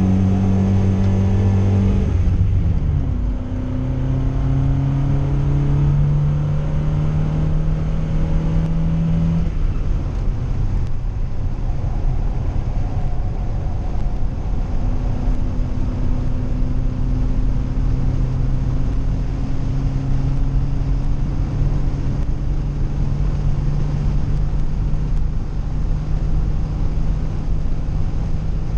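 Standard 1600cc four-cylinder engine of a 1959 Volvo pulling hard, heard from inside the cabin. The note drops sharply about two seconds in and again about ten seconds in, and each time climbs slowly as the car gathers speed. Road and wind noise runs underneath.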